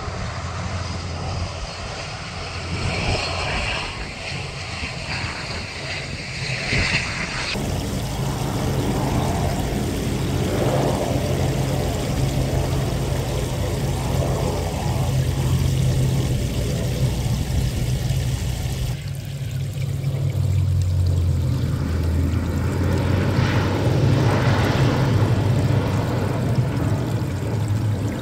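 Distant turboprop airliner engines with a low, steady propeller drone, carried across open water with some wind noise. The sound shifts abruptly about seven seconds in and again about nineteen seconds in.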